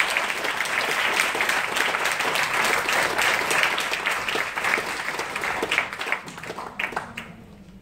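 Audience applauding, dying away near the end with a few last separate claps.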